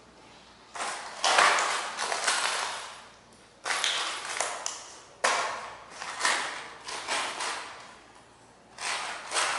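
Tools and metal hardware being handled and rummaged through while swapping to an alligator-clip wall anchor: several separate clinks and rattles, each starting suddenly and trailing off.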